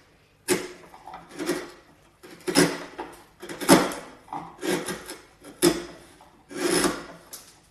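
Bench chisel pushed by hand, paring waste wood from a lap joint in about seven short slicing strokes, roughly one a second, taking the waste down short of the gauge line.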